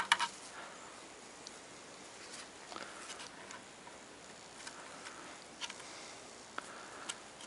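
Faint scattered clicks and rubbing as nitrile-gloved fingers and a nail work at a broken-in chip in a cello's wooden top, with one sharper click right at the start.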